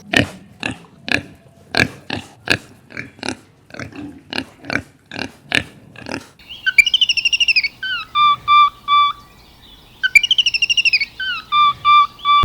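A run of about a dozen short animal calls, roughly two a second. Then a high whistled phrase, a warbling trill dropping into a few steady held notes, plays twice.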